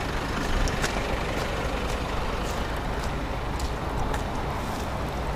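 Steady low rumble of street traffic, with faint light clicks about twice a second.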